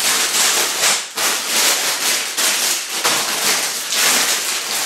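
Clear plastic polybags full of LEGO pieces crinkling as they are handled and shuffled, a continuous rustle with a couple of brief breaks.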